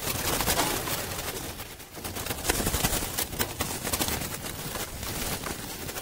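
Doves and pigeons moving about a wire-mesh aviary, with flurries of wing flapping and scuffling heard as quick, irregular clatter, busiest about half a second in and again around the middle.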